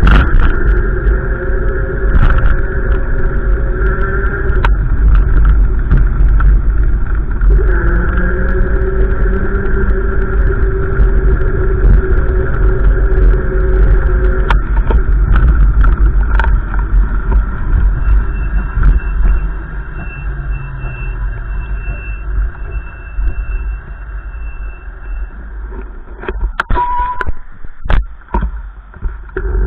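Gusty wind buffeting the microphone in a deep, steady rumble, with a steady hum over it that stops and starts; the rumble eases about twenty seconds in, and a few sharp knocks come near the end.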